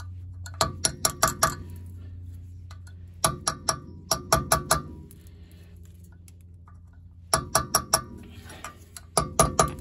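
Light hammer taps on a metal wheel-bearing dust cap, in four quick bursts of a few taps each, seating the cap on the wheel hub until it bottoms out. A steady low hum runs underneath.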